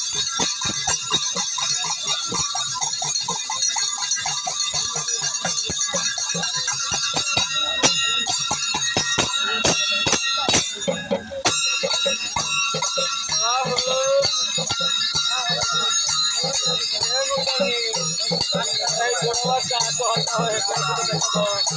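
Live folk dance music: a dholak (two-headed barrel drum) beaten in a fast rhythm with small hand cymbals jingling. The beat breaks off briefly about ten seconds in, and a voice sings over the music in the second half.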